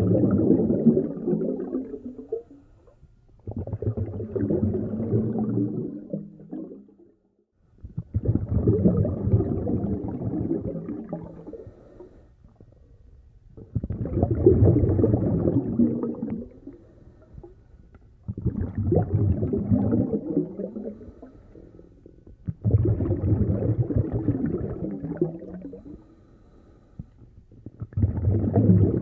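A snorkeller's breathing through the snorkel, heard through an underwater camera: a muffled, rushing gurgle about every four and a half seconds, seven breaths in all.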